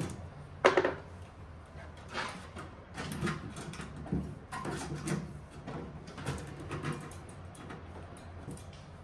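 Handling noises as a camera cable is pulled through a pickup truck's tailgate with a metal hanger: two sharp clicks right at the start, then a series of softer, irregular scrapes and rubs.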